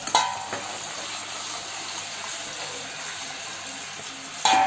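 Soaked black chickpeas deep-frying in hot oil under a steel lid, giving a steady hiss. A ringing metal clink comes just after the start and again, louder, near the end as the lid is shifted on the pan.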